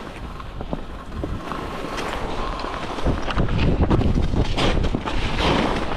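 Wind buffeting the microphone of a skier moving downhill, with skis scraping over snow; it grows louder about three seconds in.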